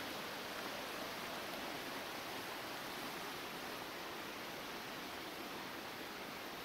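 Quiet outdoor ambience: a faint, steady hiss with no distinct events.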